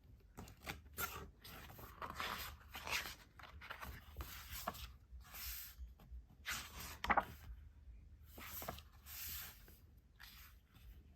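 Pages of a glossy album photo book being turned and handled: irregular paper rustles and slides.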